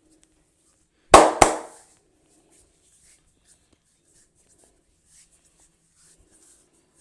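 Two loud, sharp cracks about a quarter second apart, about a second in, from a barber's head and neck massage.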